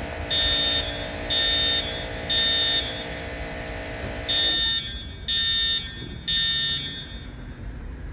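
Edwards Integrity fire alarm horn sounding in the temporal-3 evacuation pattern: high-pitched beeps in groups of three, about a second apart, with a longer pause between groups.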